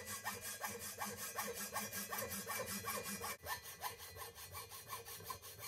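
Hacksaw with an 18 TPI Sandflex blade cutting through the thin-walled cam tunnel of a cast aluminium Kawasaki Z1 cylinder head, in rapid, even back-and-forth strokes.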